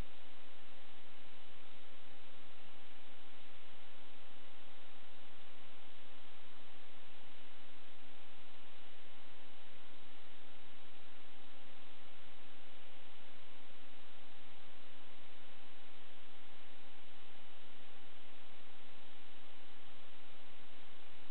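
Steady hiss with a constant electrical hum under it, unchanging throughout: the audio channel of an analog FPV video receiver, recorded by the goggles' DVR.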